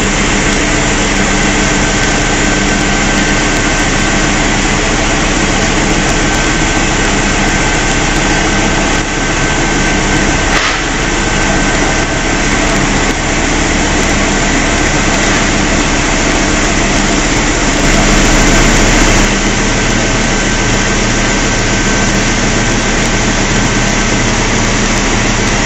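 Atelier François CE46 high-pressure (40 bar) piston air compressor running steadily under load: a loud, even mechanical din with a steady hum and whine. It swells briefly about three-quarters of the way through.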